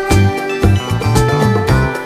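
Background music with a steady drum and bass beat and sustained melodic notes.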